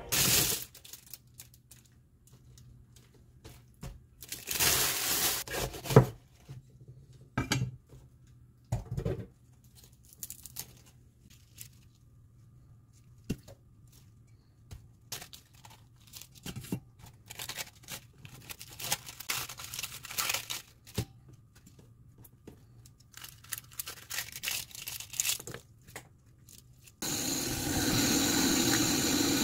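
Crisp iceberg lettuce leaves being torn apart by hand, in irregular crackling rips of varying loudness. Near the end a kitchen tap comes on suddenly and runs steadily onto the lettuce in a steel bowl.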